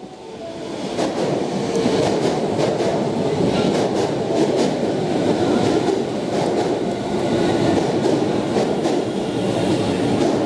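Osaka Municipal Subway Chūō Line electric train running past close by, a steady rumble with the wheels clacking over rail joints.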